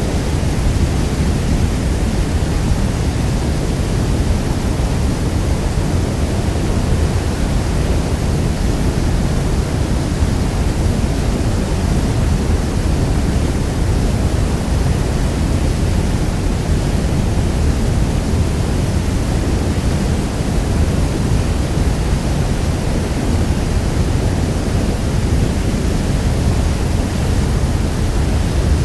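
Niagara Falls: the steady rush of a large waterfall, a dense, even wash of water noise heaviest in the low end.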